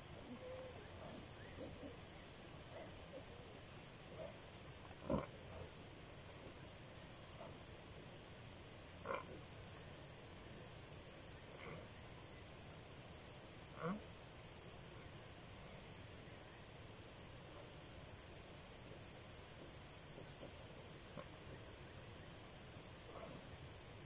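Steady high-pitched shrilling of insects in the forest, unbroken throughout. Three short, louder sounds stand out, about five, nine and fourteen seconds in.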